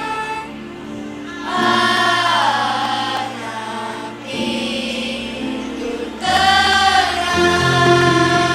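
Children's choir singing a sacred song in long held phrases over a steady accompaniment, with short breaths between the phrases.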